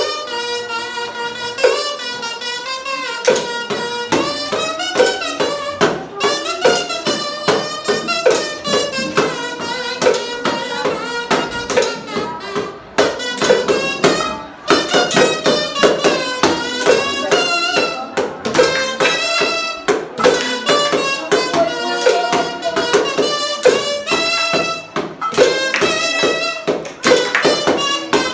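A melody played on a harmonica, with a rhythm tapped and shaken on small hand percussion.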